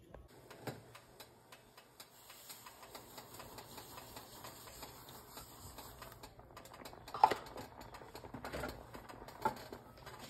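Dry cream of wheat poured into a pot, a fine pattering hiss of falling grains, followed by two sharp clinks, the loudest about seven seconds in.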